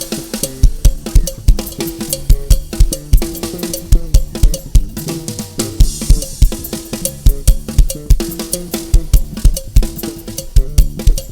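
Music led by a drum kit playing a fast, steady beat of bass drum and snare over sustained pitched backing notes.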